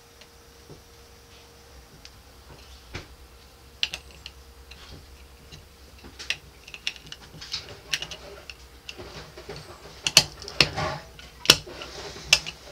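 Small plastic-on-metal clicks and taps as a cap is fitted by hand onto the hub of a chrome Grohe shower valve handle. The clicks come sparsely at first and grow sharper and closer together near the end, as the cap goes on.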